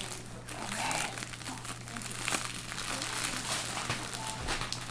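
Packaging bag crinkling and rustling in the hands as a yarn delivery is opened, a dense run of irregular crackles.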